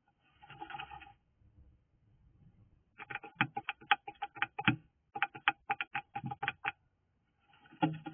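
A bird at its nest making rapid sharp taps, about eight a second, in two runs lasting a couple of seconds each. Short scuffling comes about half a second in and again near the end.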